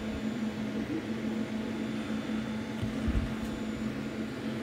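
Steady low mechanical hum of a machine running in the room, with a few soft knocks and light handling of a paper leaflet in the middle.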